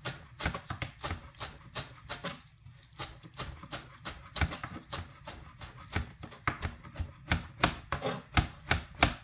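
Kitchen knife chopping fresh cilantro on a plastic cutting board: a steady run of blade knocks, about four a second, heaviest near the end.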